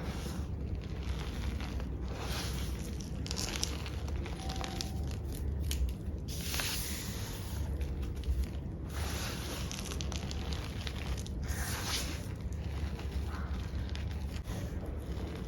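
Powdered gym chalk (magnesium carbonate) being squished and pressed, giving soft crunching and swishing sounds in repeated strokes, over a faint steady low hum.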